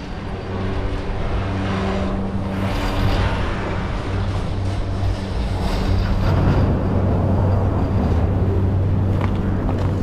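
Chairlift machinery giving a steady low hum as the chair rides into the station, over a rushing noise, with a faint click or two near the end.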